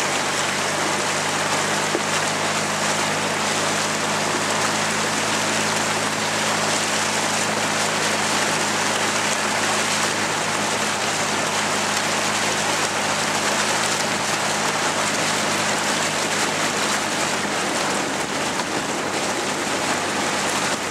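Dragon boat paddles splashing and water rushing past the hull in a steady, even hiss, with a steady low hum underneath.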